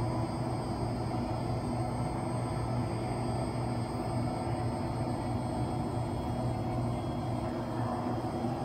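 Steady low rumble of a swimming-pool hall's background noise, even throughout, with faint steady high hums above it.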